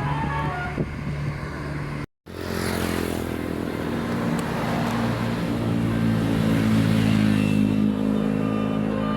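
Bus engine running steadily, cut off for a moment about two seconds in, then running on a little louder.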